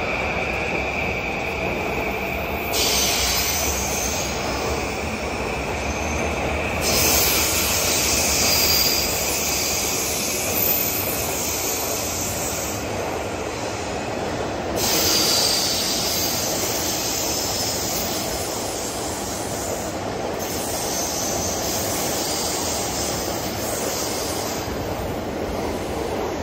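E235-1000 series electric train pulling out, its cars rolling past with a steady rumble. High wheel squeal from the curves comes and goes in stretches of a few seconds.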